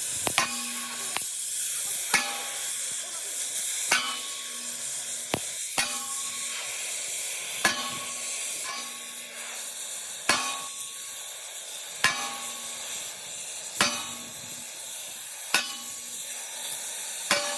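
Steady hissing sizzle of arc welding on steel, with a sharp click about every two seconds, each followed by a brief low tone.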